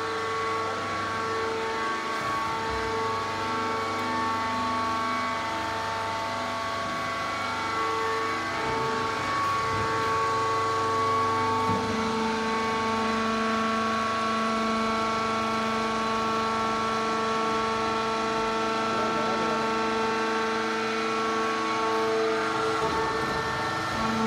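Wood-shavings baling machinery running: a steady mechanical hum of several held tones, with a lower tone joining about halfway through.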